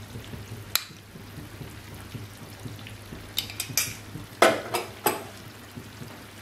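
Chicken roast simmering in oil and ghee in a pan: a faint steady frying sound over a low hum, broken by a few sharp clicks and pops, most of them bunched between about three and a half and five seconds in.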